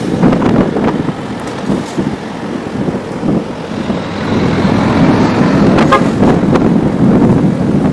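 Road traffic heard from a bicycle: a Scania coach's engine and tyres running close alongside, with wind on the microphone. A short squeak comes about six seconds in.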